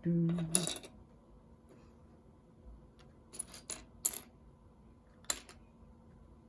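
A brief voice sound at the very start, then a few sharp clicks and rattles of plastic Lego pieces being handled and pressed together, a small cluster around the middle and a single click later.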